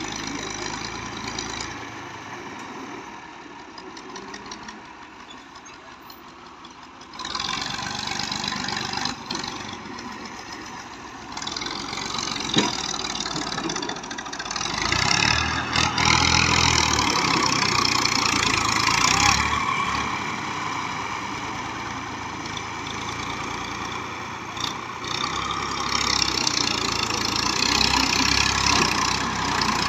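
Massey Ferguson 240 tractor's three-cylinder diesel engine running under load while it manoeuvres a heavily loaded brick trolley. The revs rise and fall: lower for a few seconds early on, picking up at about seven seconds, and pulled hardest from about fifteen to nineteen seconds.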